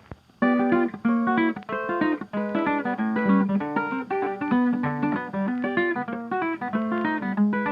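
Background music of plucked guitar, a quick run of notes that starts about half a second in and keeps going.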